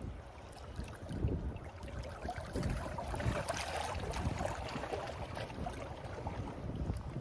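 Wind buffeting the microphone in gusts, with a louder hiss swelling about three to four seconds in.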